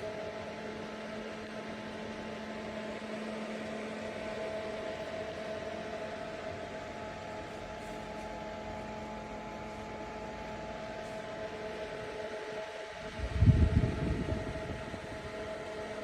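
Small portable evaporative air cooler's fan running steadily, a constant whirr with a few held tones. A brief low rumble comes near the end.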